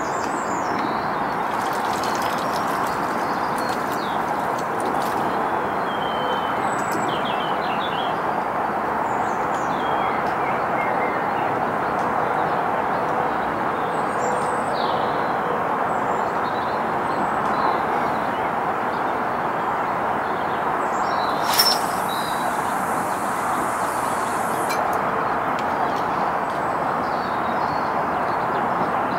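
Steady outdoor rushing noise with small birds chirping now and then. A single sharp click comes about two-thirds of the way in.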